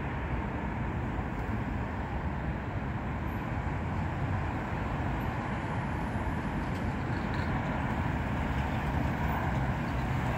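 Steady road traffic noise from cars and vans moving through a city junction, a continuous rumble that grows a little louder toward the end.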